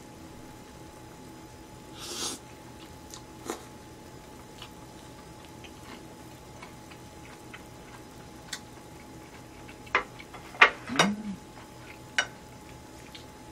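Quiet eating sounds: metal chopsticks click against a bowl and plate a few times, mostly in the last few seconds, with chewing and a short scraping noise about two seconds in, over a faint steady hum.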